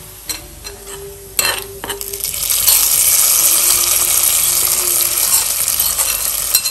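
Knocks and scrapes of a metal spoon on an iron pan as a hot coconut-oil tempering of fried coconut and shallots is tipped out, then, from about two and a half seconds in, a loud steady sizzle as the hot oil hits the curry.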